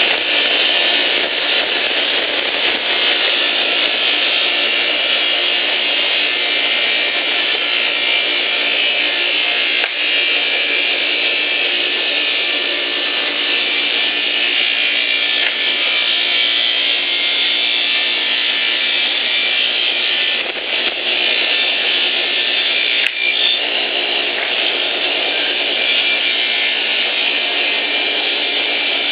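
Wood-sawing machine running and cutting boards: a steady, loud mechanical noise that carries on without a break.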